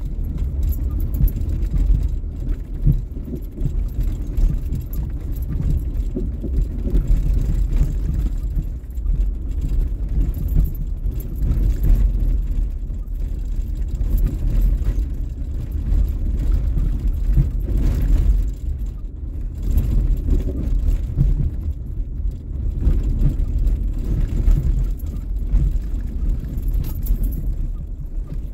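Inside a car driving slowly over a rough, rocky dirt road: a steady low rumble of tyres and suspension, with irregular knocks and light rattles as it jolts over ruts and bumps.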